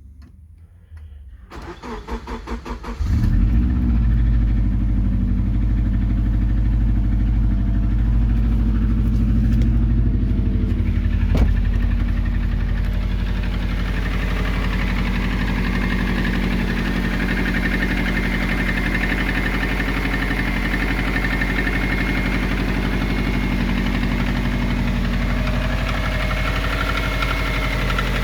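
Subaru EJ20G turbocharged flat-four cold start: the starter cranks for a couple of seconds, the engine catches about three seconds in and settles into a steady cold idle. This is the knock on a cold engine that the owner is recording before pulling the engine.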